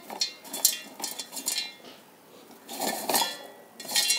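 Hard dried pieces of amla, reetha and shikakai rattling and scraping against the stainless-steel jar of a mixer grinder as a hand stirs through them, in about four short clinking bursts.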